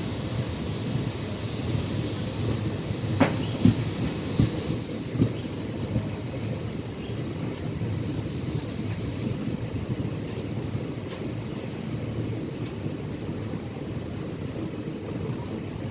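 Passenger train running on the track: a steady low rumble, with a few sharp knocks of the wheels over rail joints about three to five seconds in.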